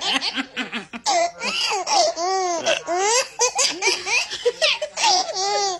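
Baby laughing in quick high-pitched bursts, with longer squealing laughs about two seconds in and near the end, joined by a woman's laughter.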